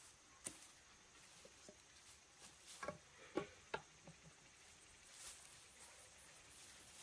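Faint scattered taps and rustling, with three short animal calls close together about three to four seconds in.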